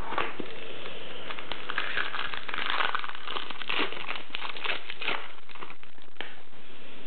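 Foil wrapper of a trading-card pack crinkling and tearing as it is ripped open by hand: a dense, continuous run of crackles and small clicks.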